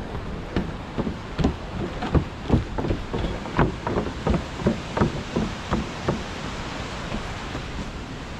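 Running footsteps on a wooden boardwalk, a quick series of knocks at about three a second that stops about six seconds in, over a steady hiss.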